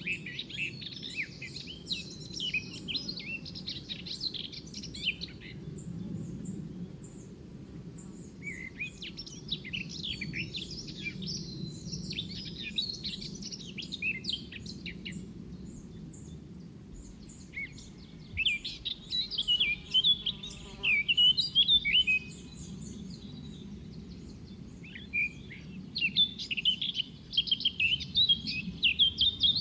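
Small birds singing in rapid, twittering chirpy phrases, in four bouts with short pauses between, over a steady low background rumble.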